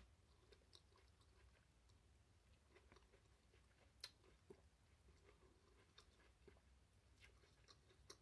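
Faint chewing of corn on the cob coated in crushed Flamin' Hot Cheetos, with scattered soft mouth clicks.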